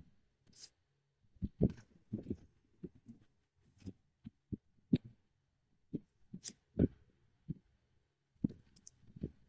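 Cardboard tablet box being handled: soft, irregular thumps and scrapes as the inner box slides out and its paper flaps are opened, with a few brief rustles.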